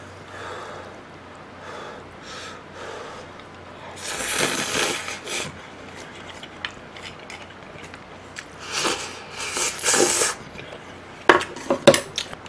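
Ramen noodles and soup being slurped from a bowl with chopsticks: two long slurps, about four and nine seconds in, then a few sharp clinks of tableware near the end.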